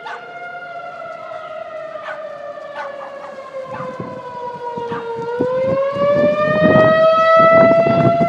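Outdoor tornado warning siren sounding its wail: the pitch sinks slowly for about five seconds, then rises again. A rough low rumble builds beneath it from about four seconds in, and the whole sound grows louder.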